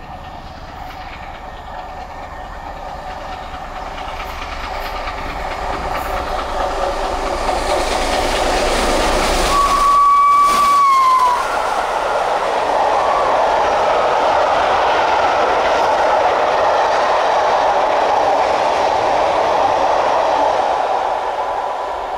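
Steam locomotive 60103 Flying Scotsman approaching at speed, growing steadily louder, then sounding one whistle note of about a second and a half that drops in pitch as it passes. Its train of coaches follows, rushing by with a steady rattle of wheels on the rails that begins to ease near the end.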